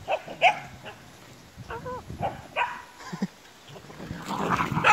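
Dogs barking and yelping in short, sharp calls while tussling, a few scattered and then a quick run of them near the end.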